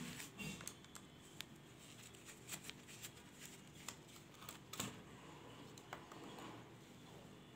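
Faint, scattered small clicks and light handling noises: screws and small laptop parts being worked by hand while a hard disk is taken out of its bracket.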